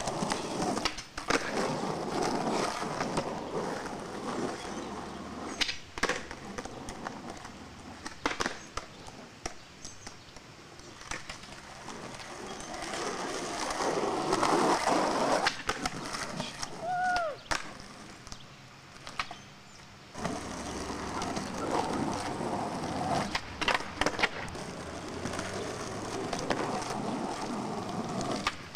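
Skateboard wheels rolling on rough concrete in several long stretches, broken by sharp clacks of the board hitting the ground during tricks. A brief squeak about two-thirds of the way through.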